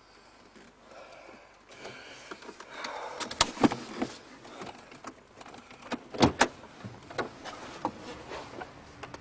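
Sharp clicks and knocks from a car door being unlatched and opened: two loud clicks about three and a half seconds in, two more about six seconds in, and lighter knocks after them.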